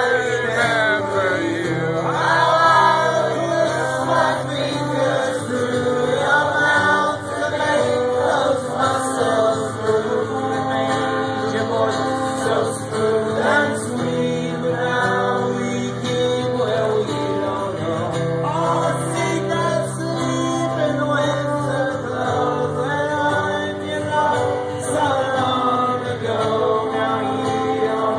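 Live folk song: strummed acoustic guitar with two brass horns and singing, which may include the crowd singing along.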